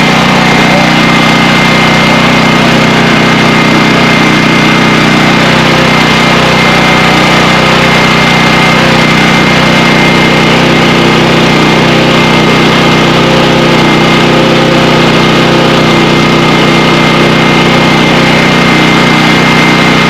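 Champion portable generator's small gasoline engine running steadily at a constant speed with a thin steady whine, back in running order after an oil change, carburetor cleaning and a new spark plug.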